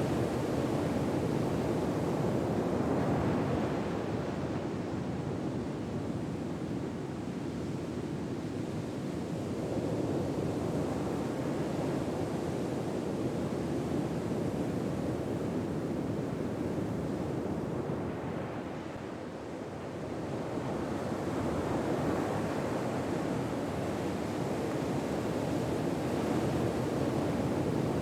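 Ocean waves on a shore: a steady rushing surf that slowly swells and eases over several seconds, softening twice before building again.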